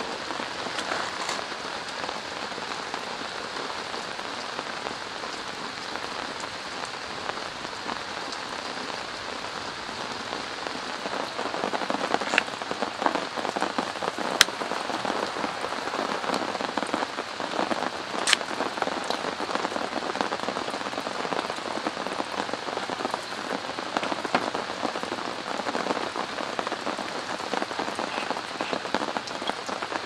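Steady rain falling and pattering on surfaces, a little heavier about halfway through, with a few sharp clicks.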